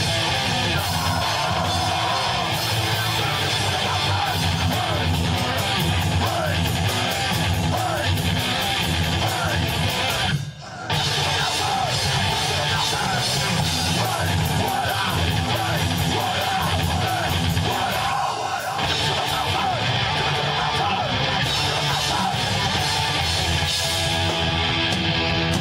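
Live rock band playing a heavy song with electric guitar, bass and drums. The whole band cuts out together for about half a second about ten seconds in, then comes back in.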